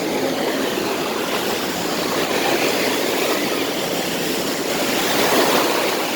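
Steady rush of falling and splashing water, an even hiss with no breaks.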